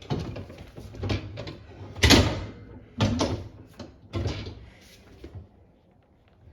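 Knocks, rattles and scrapes of dishwasher parts being tugged and worked by hand while they stay caught on a hook: about five clattering bursts, the loudest about two seconds in.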